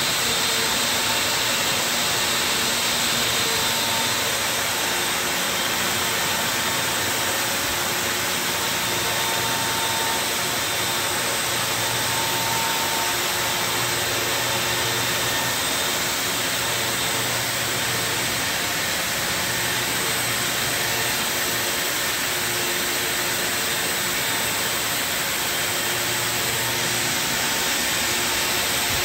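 Circular knitting machine running: a steady, loud mechanical whir with faint humming tones in it.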